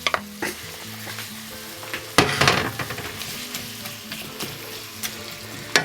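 Chopped chicken breast sizzling as it fries with onions in hot oil in a saucepan, with a sudden louder burst of sizzle about two seconds in.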